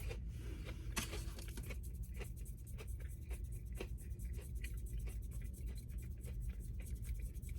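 Close-up mouth sounds of chewing a crispy tater tot: an irregular run of crunches and wet clicks, several a second.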